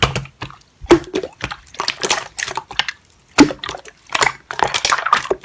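Slime being squished and pressed, giving wet clicks and pops at an irregular pace.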